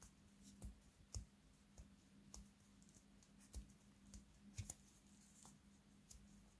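Near silence: faint, irregular small clicks from fingers pinching and pleating a bun's dough seam closed, over a faint steady low hum.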